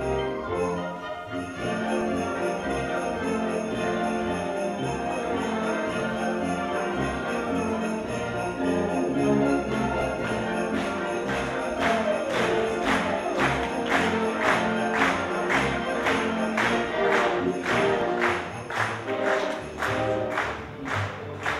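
Orchestral music with jingling bells for a ballet finale. From about halfway through, a sharp, steady beat of about two strokes a second joins in.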